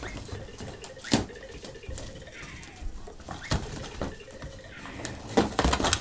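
Latex balloons bumping and rubbing against each other and against a baby walker's plastic toys: irregular soft knocks and rubbing, with a cluster of knocks near the end.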